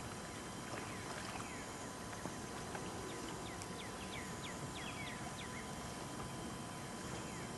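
A dog swimming in a pond, with faint water splashing under a steady hiss. Groups of short, high chirps that fall in pitch come about a second in and again from about three to five and a half seconds in.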